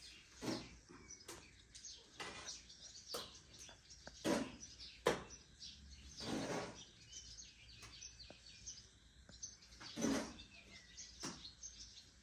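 A table knife scraping over toast in repeated short strokes as marmalade is spread, with birds chirping in the background.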